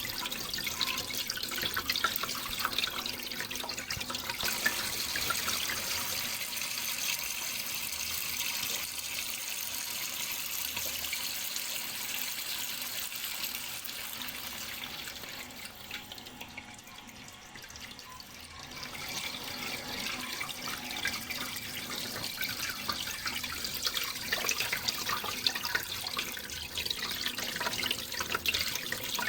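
Running water splashing steadily, with a dense patter of small drips and splashes. It grows quieter for a few seconds after the middle, then picks up again.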